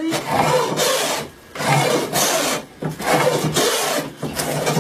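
Hand plane taking repeated strokes along a wooden board, each stroke a rasping swish about a second long with short pauses between, about three in a row, shaving the frame stock flat.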